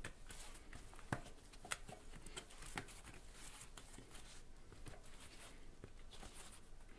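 Faint rubbing and scraping of a bicycle tyre's rubber bead being pushed by hand over the metal wheel rim. A few sharp clicks come in the first three seconds.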